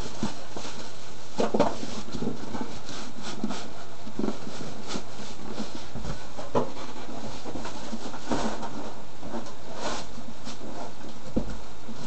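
Scattered rustles, clicks and light knocks of unboxed items and packaging being handled, over a steady hiss.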